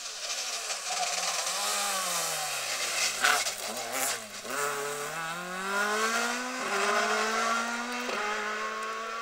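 Mk2 Ford Escort rally car at stage pace: the engine note falls as it slows for a bend, then climbs hard as it accelerates away, with two upshifts in the second half.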